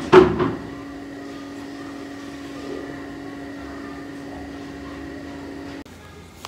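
A steady mechanical hum with a fixed low pitch, from a running room appliance, which stops abruptly near the end. A brief loud noise sounds right at the start.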